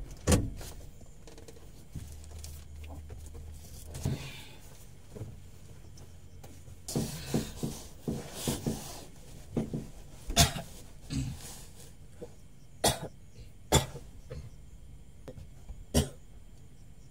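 Shifting and rustling as a person climbs onto a truck cab's plastic-wrapped sleeper bunk and settles down. A handful of sharp knocks or coughs are spread through, the loudest about ten seconds in.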